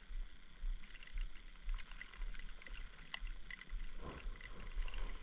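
Low, gusting rumble of wind buffeting the microphone, with faint scattered ticks.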